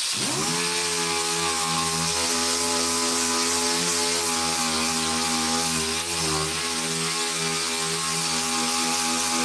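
Dual-action (DA) sander sanding Bondo body filler: it spins up at the start and then runs steadily with a whine over a hiss, dipping briefly in pitch about six seconds in.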